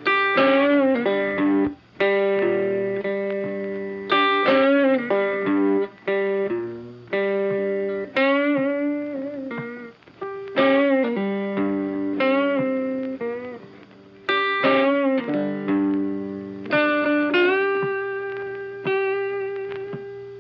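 Background music: a plucked guitar melody in short phrases that start every couple of seconds, with some notes bent in pitch.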